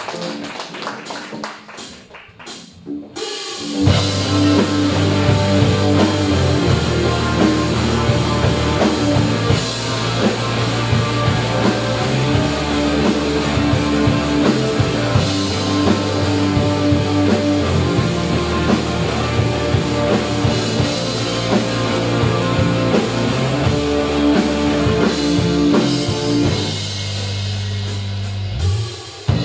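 Rock band playing live: electric guitars, bass guitar and drum kit in an instrumental passage before the vocals. It starts quiet and sparse, the full band comes in together about four seconds in, and it thins out briefly near the end.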